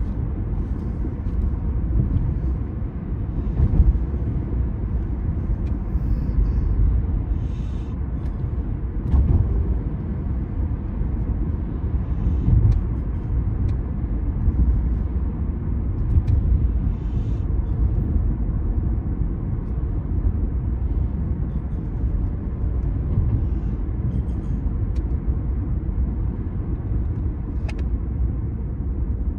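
Steady low rumble of a car driving along a street, heard from inside the cabin: road and engine noise, with a few faint ticks.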